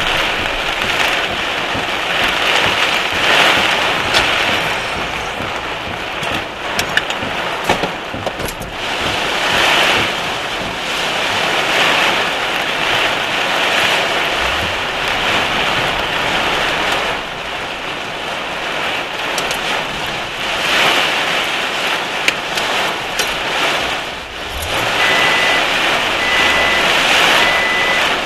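Heavy rain and rushing floodwater, a dense hiss that swells and fades every few seconds, with a few sharp ticks. Near the end a vehicle's reversing alarm starts beeping steadily.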